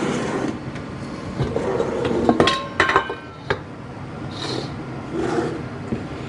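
Stainless steel kitchenware being handled: a few sharp metal knocks and ringing clinks two to three seconds in, as a stainless steel spice tin is opened and its lid set down, then softer handling sounds.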